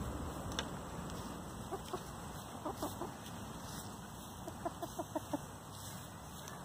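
Hens clucking in short runs of quick notes: a few around two and three seconds in, then a faster run of about six near the end.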